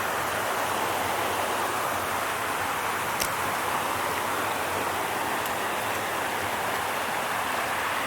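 Creek water rushing steadily down a sliding cascade of falls, with one sharp click about three seconds in.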